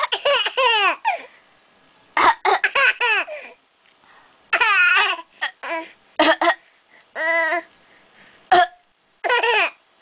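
A ten-month-old baby laughing in short, high-pitched bouts, about seven of them with short pauses between.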